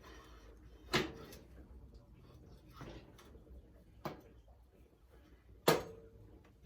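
Four sharp metal knocks from tools striking an engine part, the last the loudest, with a short metallic ring after it.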